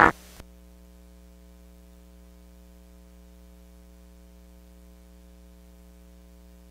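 Steady low electrical mains hum with a faint hiss, with a small click about half a second in.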